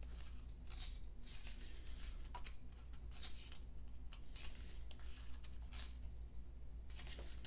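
Pages of a K-pop album's photo book being turned one after another, each turn a short paper swish, irregularly every second or so, over a faint steady low hum.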